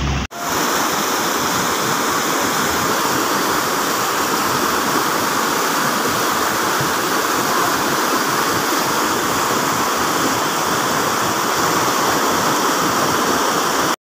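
Fast mountain river rushing over boulders in white-water rapids: a steady, even rush of water. The sound cuts out for a moment just after the start, then runs on unbroken.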